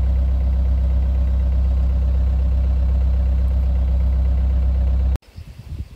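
Doosan mini excavator's diesel engine running steadily, heard from inside the cab as a loud, even hum with the bucket held still. It cuts off abruptly about five seconds in.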